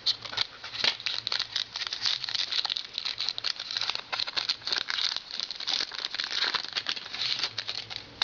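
Hockey card pack wrapper crinkling as it is torn open and the cards are handled: a dense, continuous run of crackly rustles and small clicks.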